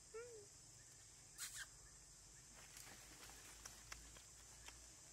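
A long-tailed macaque gives one short coo that rises and falls in pitch. A brief rustle follows about a second and a half in, then scattered faint clicks.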